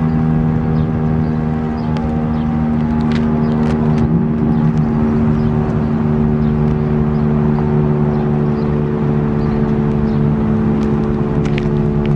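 Federal Sign & Signal STH-10A outdoor warning siren sounding at a steady low pitch, several tones held together without rising or falling.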